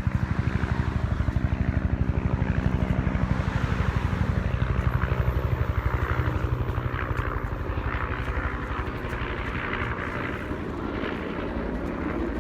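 A loud engine with a fast, even low pulsing, like a helicopter's rotor beat, that weakens and turns rougher after about six seconds.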